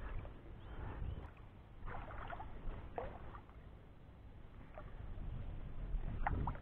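Shallow water lapping and splashing softly as a hand holds a largemouth bass in it for release.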